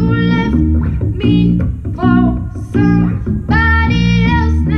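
A woman singing a pop ballad live into a microphone, accompanied by an amplified electric guitar playing sustained low chords; her sung phrases pause briefly about a second in and again around three seconds in.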